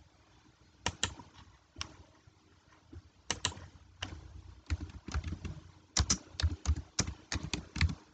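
Computer keyboard keys clicking as a short command is typed: irregular keystrokes starting about a second in, coming quicker and louder near the end.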